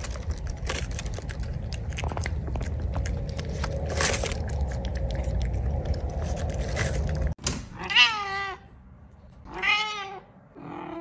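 A cat meowing, twice about two seconds apart and a third time just before the end. It follows a continuous noisy hiss with scattered clicks that stops abruptly.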